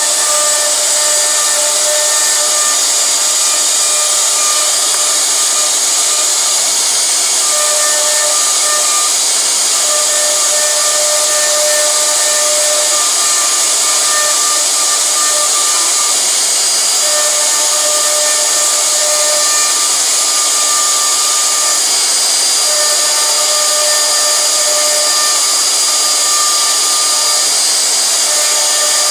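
CNC router carving a wooden name plate: a steady, high hiss of the spindle and cutter, with a lower whine that starts and stops every few seconds.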